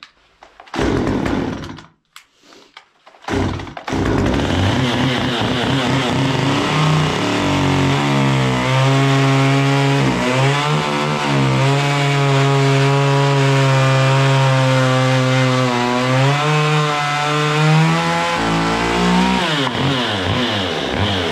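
Gas chainsaw making an angled face cut down into a log to take off the rough outside. After two short bursts about one and three seconds in, it runs hard and steady through the wood, its pitch dipping briefly twice, then falls away near the end.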